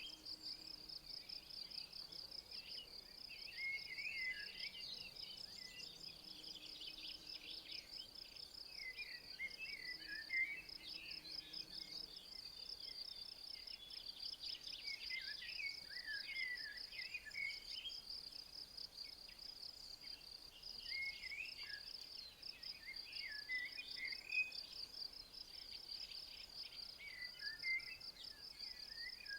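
High, steady insect trilling: a fast, even pulsing that runs without a break. Birds sing short phrases over it every few seconds.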